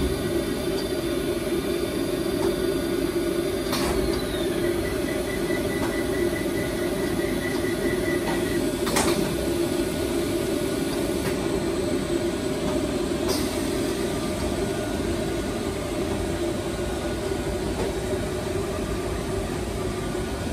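Steady machine hum of a computer-to-plate line running as a thermal printing plate is carried on the transport conveyor into an Agfa Arkana 125 plate processor. A few sharp clicks come through, and a faint run of quick ticks sounds from about four to nine seconds in.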